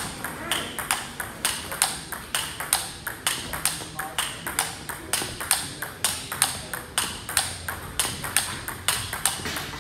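Table tennis rally: a celluloid-type ball clicking sharply off the rackets and bouncing on the table, about four hits a second in a steady rhythm, as one player drives forehand topspin loops.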